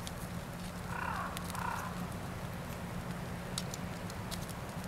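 Kitchen scissors snipping through a grilled steak held in tongs over a charcoal grill, giving several sharp clicks in the second half. Two short animal calls chirp about a second in.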